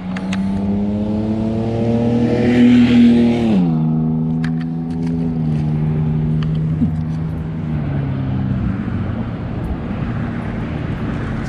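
A motor vehicle driving past, its engine note rising slightly and then dropping sharply in pitch about three and a half seconds in as it goes by, then carrying on lower and fading.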